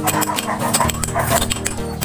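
Background music with quick metallic clicks and clinks as a lathe's four-jaw chuck is adjusted by hand.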